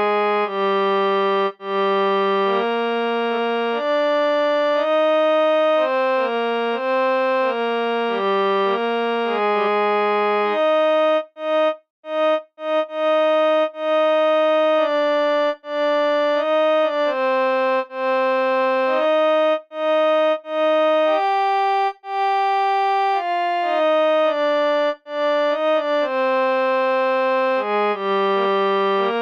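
Harmonium app on a smartphone playing a tune: a string of held notes that step up and down in pitch, each lasting from about half a second to two seconds, with a brief break about eleven to twelve seconds in.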